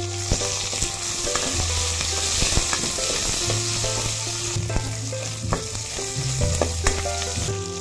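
Chopped onion and garlic sizzling in hot oil in a metal pot while a spatula stirs them, with a few sharp clicks of the spatula against the pot.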